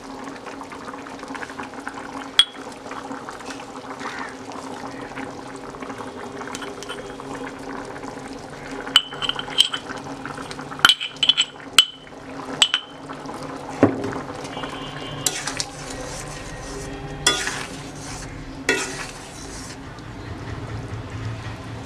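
A metal spoon stirring food in a cooking pot over a steady hiss, with a run of sharp metallic clinks against the pot about nine to thirteen seconds in and a few scrapes after.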